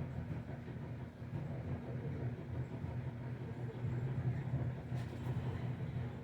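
Litex Starbright 52-inch ceiling fan running steadily on medium speed. It gives a low hum with a slight buzz, which the owner thinks the fan has.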